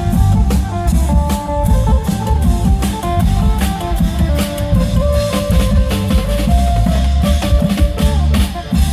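Isan klong yao long-drum band music: dense, driving drumming with heavy bass under a stepping phin lute melody.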